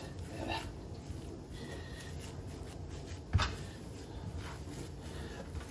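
Hands squeezing and kneading raw mutton mince and chopped bacon on a chopping board, with one sharp knock a little over three seconds in.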